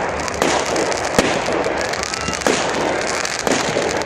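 Fireworks display: aerial shells bursting with four sharp bangs, roughly one a second, over continuous dense crackling.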